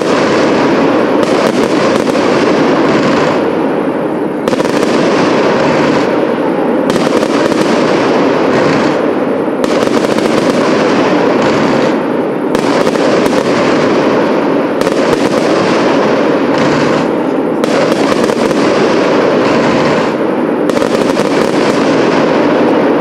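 Professional fireworks display: a loud, unbroken barrage of shell bursts and crackling, one sharp report after another with no pause.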